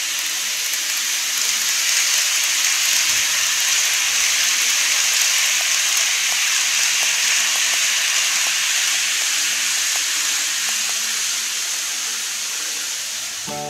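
TOMIX N-gauge model of a JR Shikoku 8000 series train running past on the track, a steady rolling hiss of wheels and motor. It swells as the train comes close, with a few faint light ticks, and fades as it moves away.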